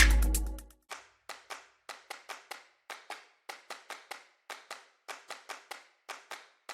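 Electronic music with a heavy bass fades out over the first second. It is followed by a run of sharp, clap-like percussive clicks, about three a second.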